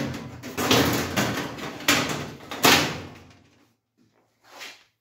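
Perforated galvanised steel bottom plate of a Parkside folding welding booth being slid and set into place, scraping and clanking against the sheet-metal frame, with three louder clangs in the first three seconds. A light knock follows near the end.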